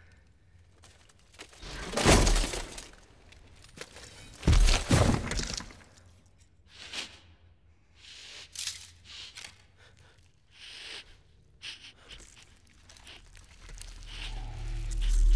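A Ringwraith's long hissing sniffs and its horse's snorts, in short breathy bursts with pauses between them. The two loudest come about two and four and a half seconds in, then shorter sniffs follow, and a low rumble swells near the end.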